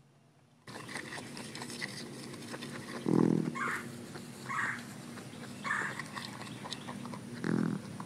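Patagonian cavies (maras) eating, with a steady patter of small chewing and rustling clicks and five short calls: two deep grunt-like ones, about three seconds in and near the end, and three higher ones between them.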